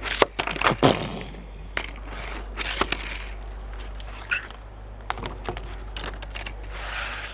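Small die-cast toy car clattering and bouncing on a hard surface. A quick run of sharp clicks comes in the first second, then scattered lighter knocks and rolling.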